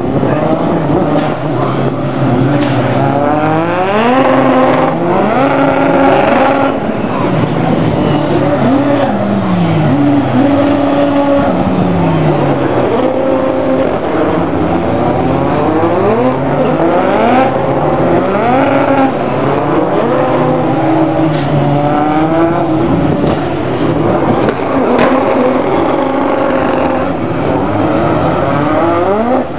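Several Formula 2 single-seaters' 1.8-litre turbocharged four-cylinder engines revving as the cars stream past one after another, the pitch repeatedly climbing through the gears and dropping as each car goes by, with engines overlapping throughout.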